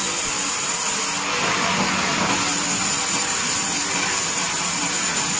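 Vertical band saw headrig ripping a pine timber fed through on its carriage: a steady hiss of the blade cutting over the running machine. It grows brighter for about a second near the start.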